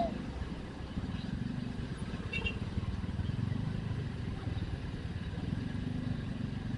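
Motorcycle engine running at low speed with steady road rumble as the bike moves along. A short single-pitched beep sounds right at the start, and a few faint high chirps come about two and a half seconds in.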